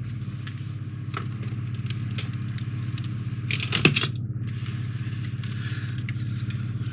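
Small clicks and light scraping from handling model kit parts and a screwdriver while fitting screws, with one louder knock about four seconds in, over a steady low hum.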